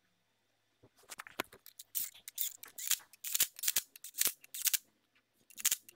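Cordless Milwaukee M12 Fuel power tool running in the flywheel bolts on a Saab B204 crankshaft, in bursts of rapid clicking that start about a second in, with a brief pause near the end. The bolts are being snugged before they are torqued to spec.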